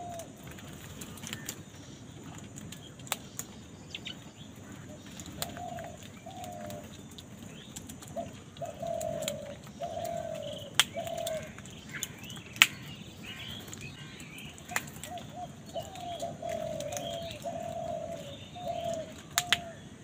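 House crows cawing in short, falling calls that come in runs of several, with higher chirps from smaller birds and a few sharp clicks in between.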